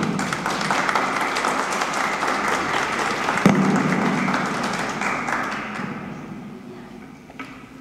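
Audience applauding, dying away over the last couple of seconds, with one sharp thud about three and a half seconds in.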